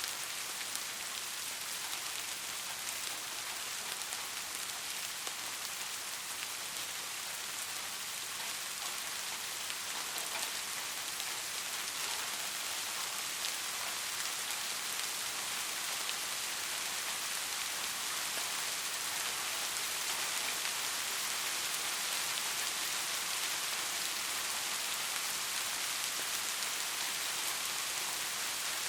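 Soft, steady rain falling, a continuous hiss made of many fine drop patters.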